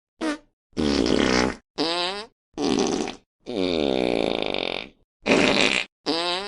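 Fart sound effects in quick succession, about seven separated by short silences. Most last around half a second; one in the middle runs about a second and a half with a bending, wobbling pitch.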